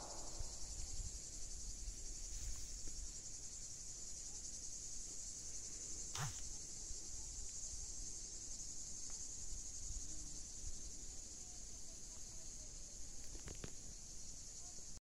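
Faint, steady, high-pitched chorus of insects shrilling in a hazelnut orchard, with a single brief tap about six seconds in.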